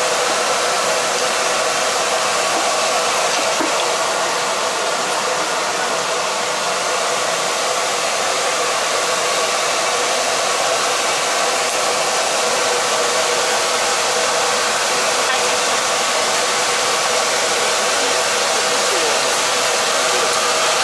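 Steady rushing noise of a gas wok burner running under a wok.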